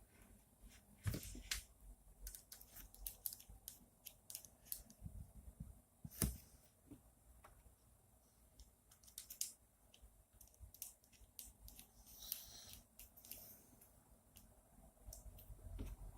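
Faint, scattered clicks and taps of small screws and acrylic printer-frame parts being handled and fitted by hand, with a brief rustle about twelve seconds in.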